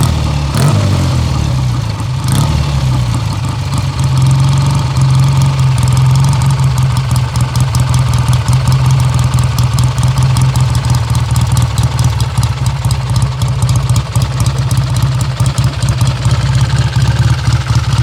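1965 Triumph Trophy's 650 cc parallel-twin engine running, with a brief rev that falls back near the start, then settling to a steady idle.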